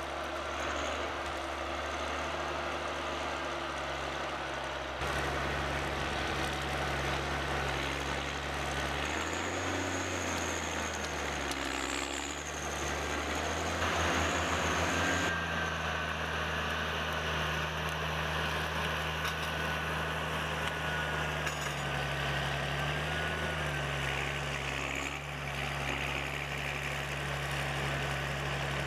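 Heavy machinery engines running steadily at low revs, with small rises and falls in engine speed; the sound changes abruptly about five and again about fifteen seconds in, as one machine gives way to another.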